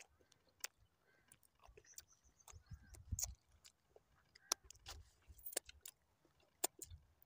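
Faint, scattered sharp clicks and smacks of sticky, honey-coated fingers and mouth as a piece of raw honeycomb is handled and then chewed, with a few soft low thumps.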